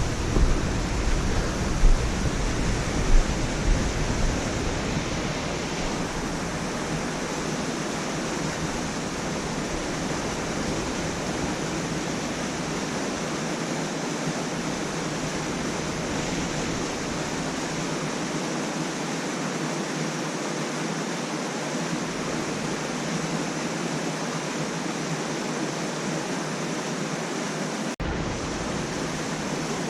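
Steady rush of flowing stream water, with a few low bumps in the first few seconds.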